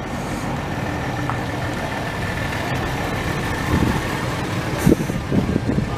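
A vehicle engine idling steadily, with faint voices of people nearby from about four seconds in.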